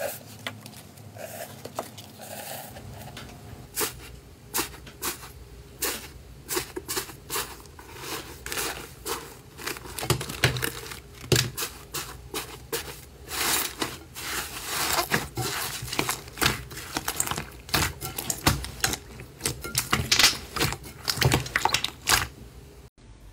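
Crunchy slime with a crisp, crumbly crust being pressed and broken up by hand, giving dense, irregular crackling and crunching that grows louder and thicker about halfway through, with squishing as the slime underneath is kneaded.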